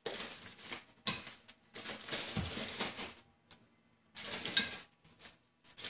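Clear plastic bag crinkling and rustling in bursts as small piano pedal parts are dropped into it and it is handled, with a sharp click about a second in.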